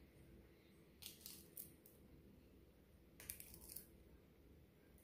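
Crab leg shell being cracked and peeled apart by hand: two short spells of faint crackling, about a second in and again about three seconds in.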